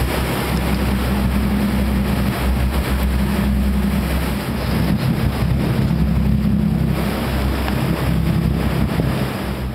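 Motorboat engine running steadily underway, with water rushing past the hull and wind noise on the microphone.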